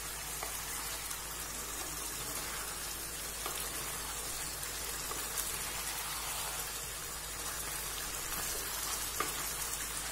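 Beef roast sizzling steadily in a nonstick kadai as its gravy cooks down and thickens, with a few light scrapes of a wooden spatula stirring it.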